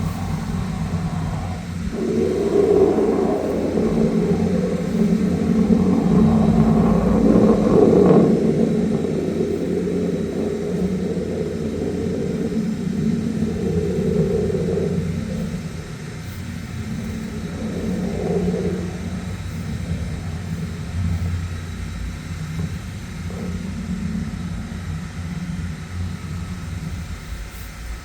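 High-pressure sewer jetter's engine-driven pump running steadily as it sends water under high pressure into the sewer line. It is louder for the first half and eases off after about fifteen seconds.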